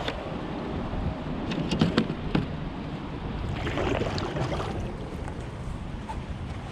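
Wind buffeting the microphone as a steady low rumble, with a few sharp knocks between about one and a half and two and a half seconds in, and a brief rushing swell around four seconds in.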